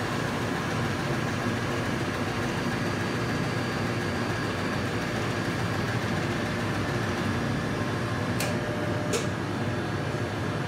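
Stoelting U431 soft-serve frozen yogurt machine running with a steady mechanical hum from its refrigeration and beater motor, a couple of thin steady tones over it. Two light ticks come about a second apart near the end.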